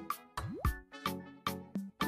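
Light instrumental background music of evenly spaced short notes, with a quick rising swoop about a third of the way in.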